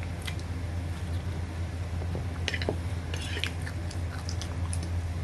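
A person chewing a mouthful of fried pork chop, with a few light clicks of a spoon and fork against a plate from about halfway through, over a steady low hum.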